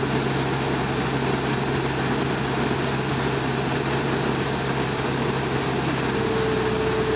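Heavy diesel engine running steadily under a constant low hum and a broad noisy rush, with a faint steady whine joining about six seconds in.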